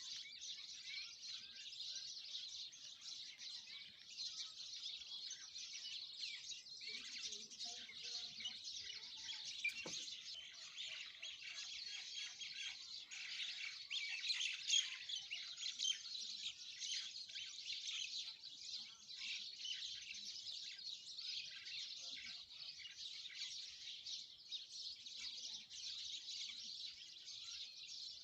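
A flock of small birds chirping together in a dense, unbroken chorus of high, overlapping tweets.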